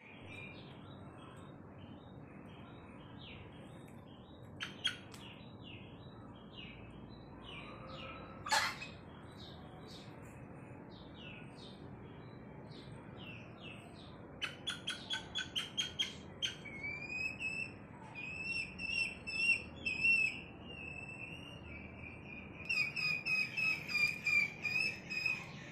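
Bird calls: a string of short high chirps, then a run of quick repeated notes and long high drawn-out calls that pulse rapidly near the end. A sharp click stands out about eight seconds in.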